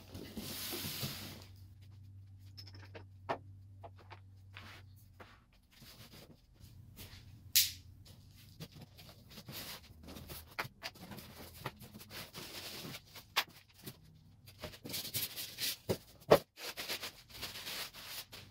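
Unboxing: a cardboard box handled and opened, its flaps and contents scraping, with scattered knocks and clicks. Toward the end, plastic wrap crinkles as a metal lathe bed extension is unwrapped.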